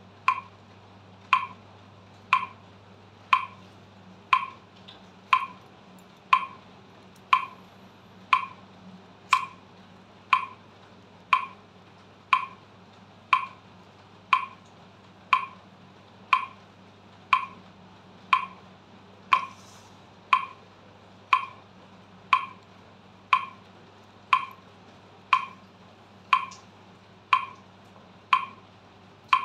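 Metronome ticking at 60 beats per minute: one short, sharp click each second, evenly spaced.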